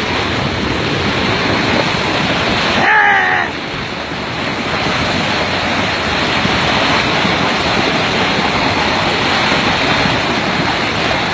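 Flash-flood torrent of muddy water rushing, a loud steady rushing noise, with a brief shout about three seconds in.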